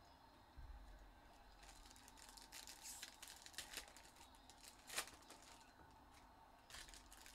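Faint crinkling and tearing of trading-card pack wrappers being opened and handled, with one sharper click about five seconds in.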